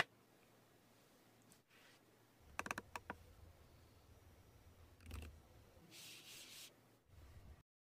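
Faint handling sounds of a laptop in gloved hands: a quick run of small clicks about two and a half seconds in, a soft thump about five seconds in, then a brief brushing slide.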